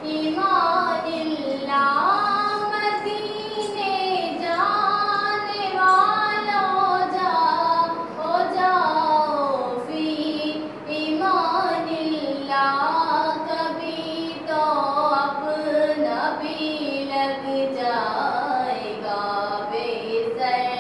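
A naat, an Islamic devotional song, sung by a high solo voice in long melodic phrases with short breaks between them.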